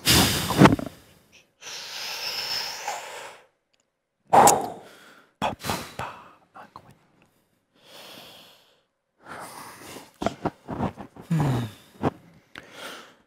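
A man's frustrated huffs, sighs and snorts, a string of separate breathy bursts. A loud rushing burst right at the start comes as he sweeps the chess pieces off the board.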